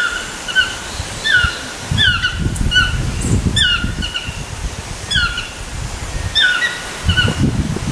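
Chestnut-mandibled (Swainson's) toucan calling: a steady series of yelping notes, a little more than one a second, each dropping then levelling off in pitch. A low rumble runs underneath.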